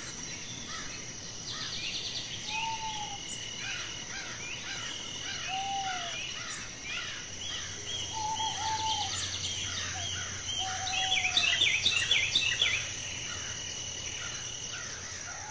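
Birds singing and calling together over a steady high-pitched insect drone: repeated whistled notes, a few lower slurred calls, and a louder flurry of chirps about two-thirds of the way through.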